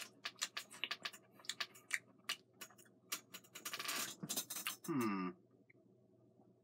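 Crisp, irregular crackling clicks, several a second, from a red bean Kit Kat being opened and eaten. They stop about four and a half seconds in, followed by a brief rising "mm" hum from the taster.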